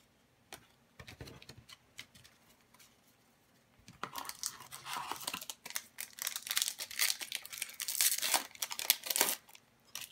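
A few light clicks and taps of trading cards being handled, then from about four seconds in an Upper Deck hockey card pack's foil wrapper crinkling and tearing open for about five seconds.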